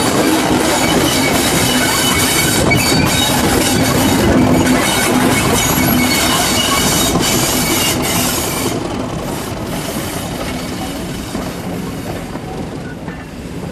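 Class 37 diesel locomotive's English Electric V12 engine working as it pulls a train of coaches past, with high wheel squeal from the coach wheels on the curve and their wheels running over the track. The sound fades steadily from about eight seconds in as the train draws away.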